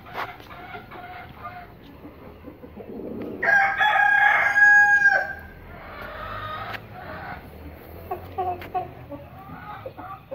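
A rooster crows once, loud and held for about a second and a half, a third of the way in. Hens cluck around it with short, softer calls.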